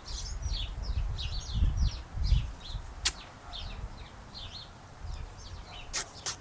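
Small birds chirping over and over, with a low rumble early on and a sharp click about halfway through and two more near the end.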